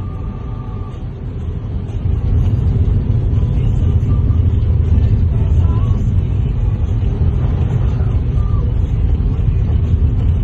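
Steady low rumble inside an airliner cabin before takeoff, getting louder about two seconds in.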